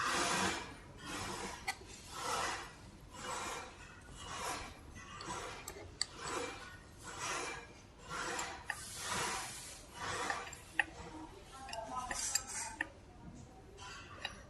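Repeated rubbing or rasping strokes, about one a second, with a few sharp metallic clicks in between.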